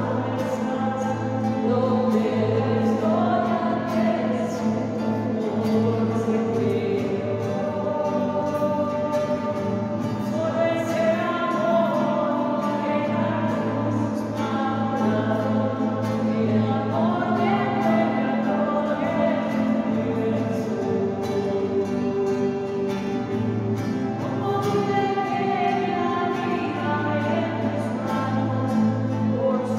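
Sung religious music: voices singing a slow song in long held notes over a steady, sustained low accompaniment.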